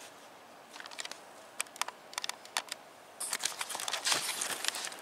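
Typing and clicking on a computer keyboard: a few scattered keystrokes at first, then a faster, denser run of clicks from about three seconds in.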